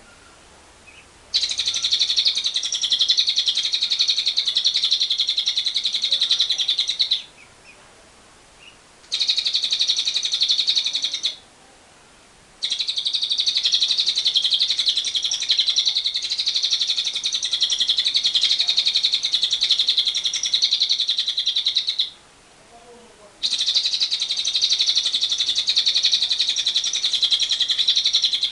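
Lovebird giving its long 'ngekek' chatter: a very rapid, unbroken trill of high notes, in four bouts with short pauses between, the longest running about ten seconds.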